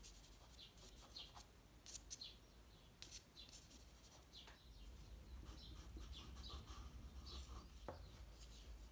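Faint scratching of soft pastel sticks stroked across pastel paper, a run of short, quick marks.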